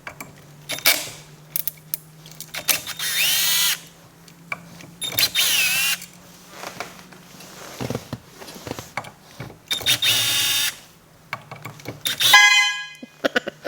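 Cordless power drill/driver backing the small bolts out of a steering-wheel hub, in four or five short runs whose motor pitch rises and falls, with small clicks of handling between them.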